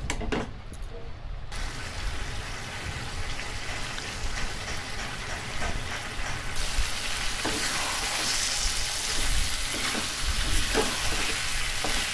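Chicken pieces frying in spice paste in a metal kadai, sizzling while a metal spatula stirs and scrapes them, with a few scrapes and knocks of the spatula against the pan. The sizzle comes in about a second and a half in and grows louder about halfway through. This is the dry-frying (koshano) stage of cooking meat down in its masala.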